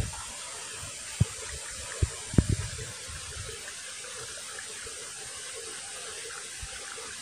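Steady outdoor hiss with a few dull, low thumps in the first three seconds.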